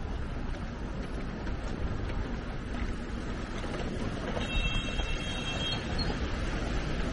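Steady low rumble of city background noise, with a brief high whine a little past the middle.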